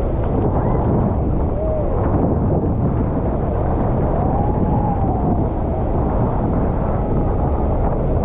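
Steady, loud wind buffeting the microphone over the low rumble of the Maid of the Mist tour boat under way. A faint rising-and-falling call sounds about four to five seconds in.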